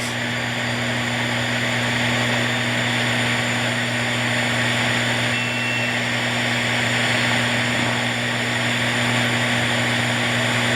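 AM radio static with a steady low hum, from a receiver picking up a 670 kHz ultrasonic signal sent through a frost-covered copper wire. About halfway through, a brief faint whistle rises out of the static: the kind of whistle taken for the sound of frost forming.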